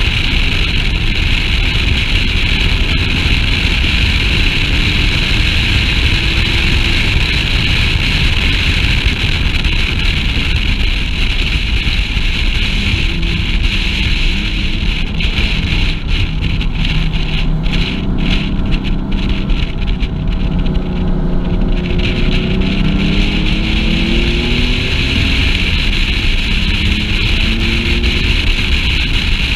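Porsche sports car's engine pulling hard on a race track, its pitch climbing under acceleration in the second half, mixed with heavy wind noise on the microphone.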